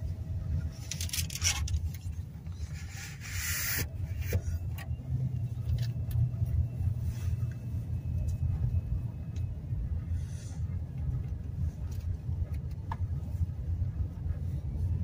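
Car driving at low speed, heard from inside the cabin: a steady low engine and road rumble, with a few short hissy rustling noises in the first four seconds.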